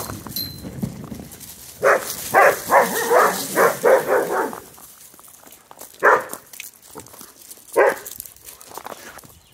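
Dog barking: a quick run of about seven barks, then two single barks a couple of seconds apart.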